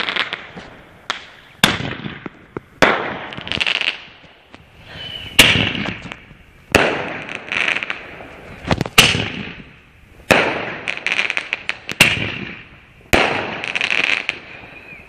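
Lesli Thunder Cannon firework firing shot after shot, about one every one to two seconds. Each sharp bang is followed by about a second of crackling as the burst scatters.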